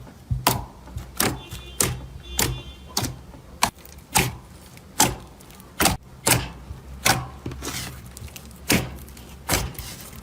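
Slime being pressed and worked by hand, giving a string of sharp pops and crackles, about one and a half a second.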